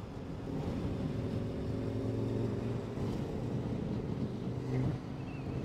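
KTM 1090 Adventure R's V-twin engine running at road speed, with wind rushing over the microphone. The sound drops a little near the end.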